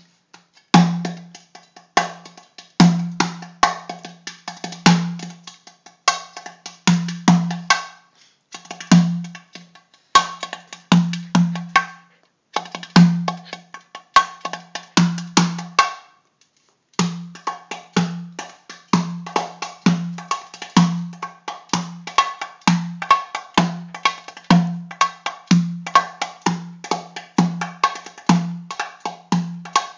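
Metal-bodied dumbek (darbuka) played by hand in a repeating semai rhythm: deep, ringing doum strokes in the centre of the head, with quick, sharp tek strokes at the rim in between. The drumming breaks off for about a second some sixteen seconds in, then resumes.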